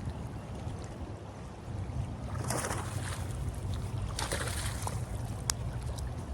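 Heavy wind buffeting the microphone with a steady low rumble, with two brief rushes of hiss about two and a half and four seconds in and a single sharp click near the end.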